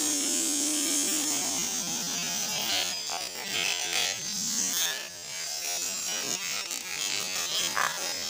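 Homemade grass cutter's high-speed 2200 KV brushless drone motor buzzing as its spinning blade cuts through wet grass; the steady whine turns rough and uneven as the blade bites in and throws grass and water. Near the end there is a brief loud knock as the machine is thrown over.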